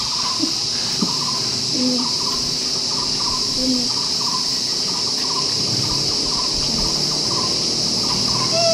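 Steady high-pitched insect drone from the surrounding tropical forest, with a run of short chirps repeating about two or three times a second.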